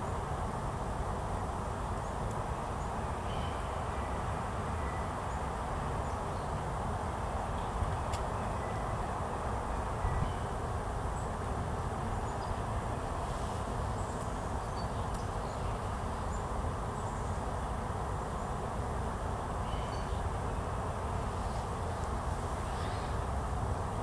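Steady low rumble of outdoor background noise, with a few faint, scattered bird chirps.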